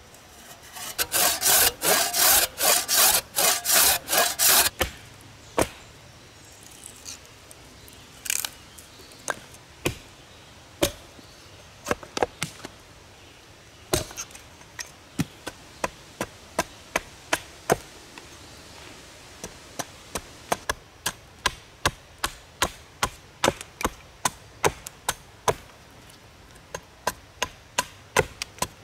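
A hand saw cutting through a short log in quick back-and-forth strokes, about two a second, for a few seconds. Then a run of sharp wooden knocks that come faster toward the end: a wooden mallet driving a froe to split a branch, then a hatchet chopping into wood.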